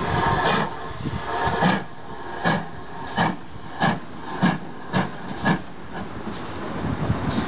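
Steam locomotive working slowly: steam hissing for the first couple of seconds, then six sharp exhaust chuffs, a little under two a second.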